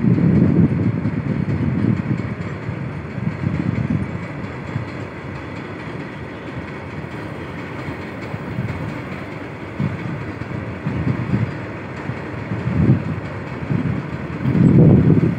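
Freight train of open-top wagons rolling past, a continuous rumble and clatter of wheels on rails that swells louder at the start and again near the end.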